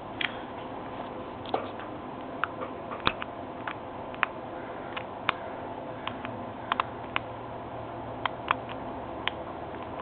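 Small, sharp metallic clicks at an irregular pace of about two a second, from a lock pick working the pins inside a brass Medeco high-security lock cylinder. A faint steady hum runs underneath.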